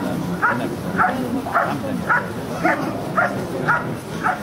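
German Shepherd Dog barking steadily at a protection helper while guarding him, about two barks a second in an even rhythm.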